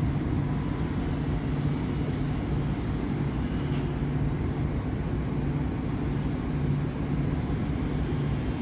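Tugboat's diesel engine running steadily under load, a low pulsing hum.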